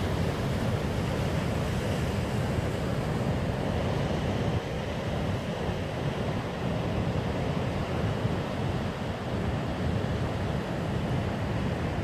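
Ocean surf breaking on a rocky shore, a steady rush of waves, with wind buffeting the microphone.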